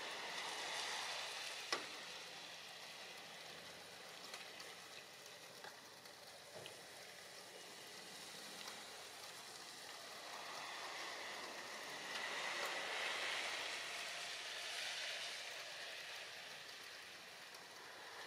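Steady hiss and splash of churned water from a small boat's bow wave and wake, swelling and fading, with one sharp click about two seconds in.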